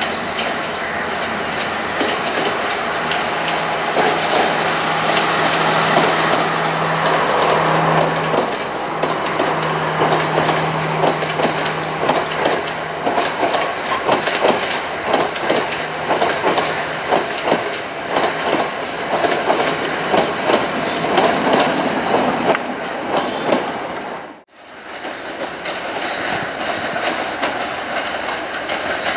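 Sri Lanka Railways diesel multiple-unit trains passing: a steady engine drone at first, then a fast, regular clatter of wheels over rail joints and points. The sound cuts out briefly about three-quarters of the way through, and another diesel train is heard running on after it.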